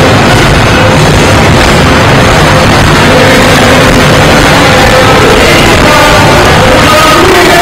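Loud, distorted music, with the engines of Tata race trucks running beneath it.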